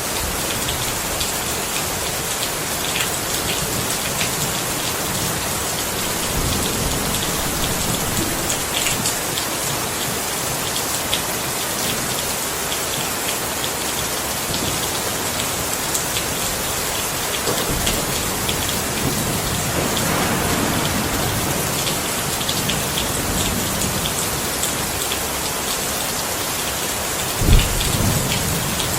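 Steady rain falling, with individual drops ticking through it. Low thunder rumbles swell up a couple of times, and a sharper, louder thunderclap breaks in near the end.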